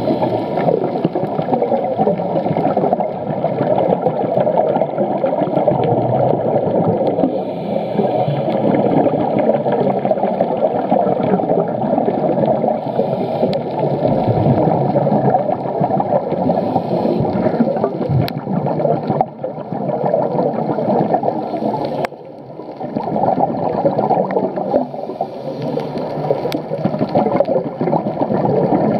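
Muffled underwater rushing and gurgling, as picked up by a camera in a waterproof housing on a scuba dive, with a brief drop in level near the end.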